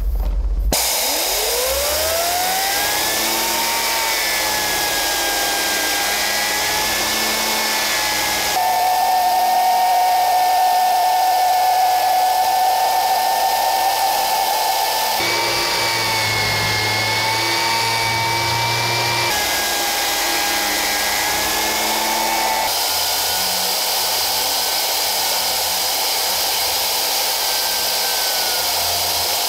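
Compressed-air-driven turbine spinning the impellers of a 3D-printed two-stage centrifugal compressor: a whine rises quickly in pitch about a second in, then holds steady over a strong rush of air hiss. The pitch and hiss jump abruptly several times.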